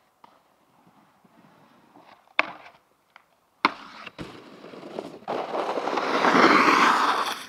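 Snowboard smacking onto a metal stair handrail: two sharp cracks about a second apart, then a loud rushing noise that swells and fades over the last couple of seconds.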